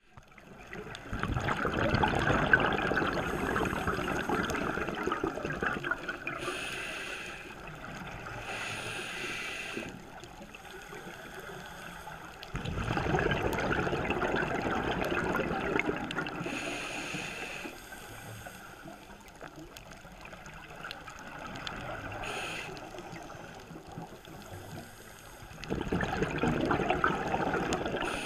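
Scuba diver's breathing heard underwater: exhaled bubbles gurgling out of the regulator in three long bursts about twelve seconds apart, with short thin hisses from the regulator between them.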